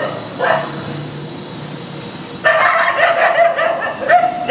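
Street dogs barking and yelping at each other: one short bark about half a second in, then from about halfway through a rapid run of overlapping barks and yelps ending in a rising cry.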